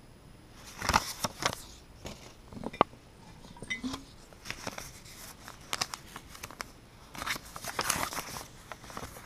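Paper notes being handled and unfolded: irregular rustling and crinkling, with scattered sharp clicks and one clear knock near the three-second mark.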